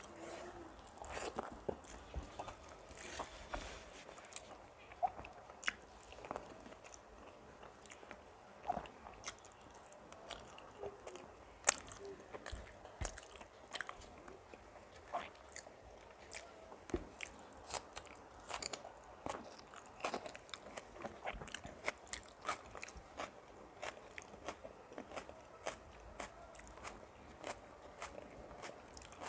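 Close-up eating sounds: chewing and crunching of rice and fried vegetables, with many short, sharp mouth clicks and one louder click about twelve seconds in.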